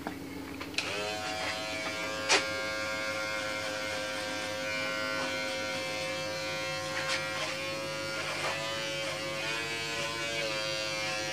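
Cordless electric hair clipper switched on about a second in, then buzzing steadily as it cuts clipper-over-comb. There is a sharp click about two seconds in and a few lighter clicks later, and the pitch dips briefly near the end as it bites into hair.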